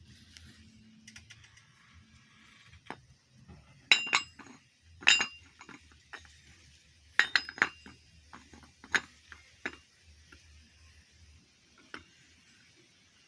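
Metal tools and parts clinking against each other in a motorcycle rear-wheel repair, about eight sharp clinks, each with a short ring, the loudest in the middle of the stretch and a last faint one near the end.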